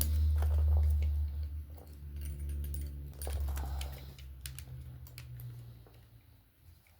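Small metal clicks and jingling from a steel split ring and fishing tools being worked open with split-ring pliers, over a low hum that fades out over the first several seconds.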